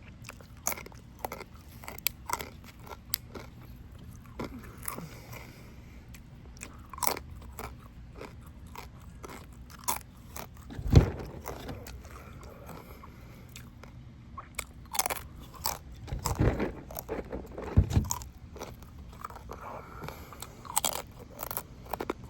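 A person eating close to the microphone: biting, chewing and crunching with many small wet clicks. There is a louder thump about 11 seconds in and a cluster of heavier bites near 16–18 seconds.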